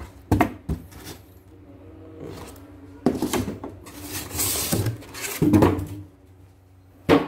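Handling of packing: a plastic embroidery hoop and styrofoam packing knocked, scraped and rubbed inside a cardboard box. There is a run of scraping and rustling partway through and a sharp knock near the end.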